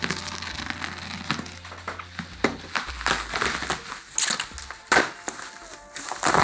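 Shipping packaging being handled and opened: rustling and crinkling, with irregular sharp crackles as it is crushed and pulled apart.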